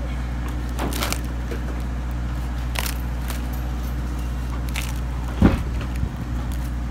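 A narrow steel blade scraping and prying at water-rotted OSB sheathing and wood, with short crumbling and cracking sounds a few times, loudest about five and a half seconds in. A steady low hum runs underneath.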